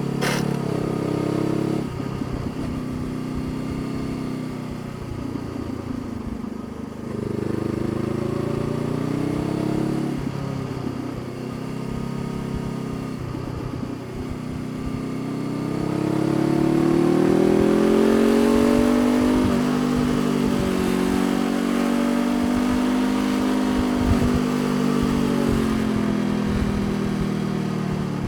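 Honda CBR500R's parallel-twin engine on the move: in the first half the revs rise and fall in short swings, then about halfway they climb and hold a higher, steady pitch, the loudest part, before easing off near the end.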